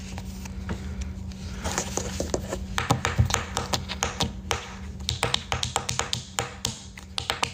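Fingers tapping and brushing on a phone close to its microphone: a run of irregular light taps, a few a second.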